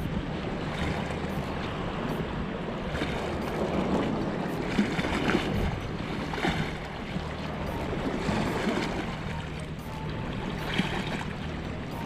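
Seawater lapping and washing against the rocks, rising and falling in swells, with wind on the microphone and a faint low steady hum underneath.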